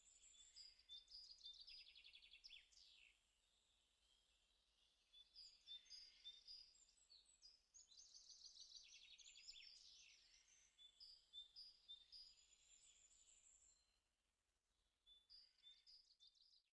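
Faint birdsong: repeated high chirps and quick trills, in two spells with a quieter gap between them.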